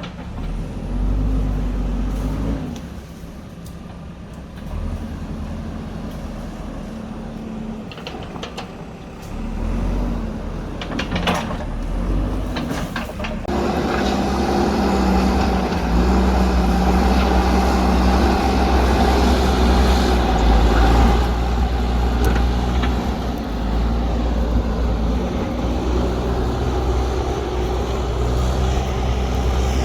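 JCB backhoe loader's diesel engine running and revving up and down as the machine works, with a few sharp knocks a little before halfway. From about halfway it runs louder and steadier under heavy load.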